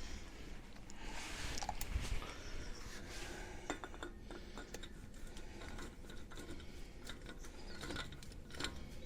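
Scattered light metallic clinks and knocks of hand tools and hub nut parts being handled, with a rustle about a second in.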